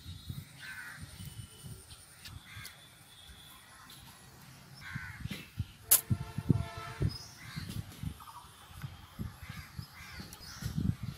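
Crows cawing several times, with dull low knocks and one sharp click about six seconds in.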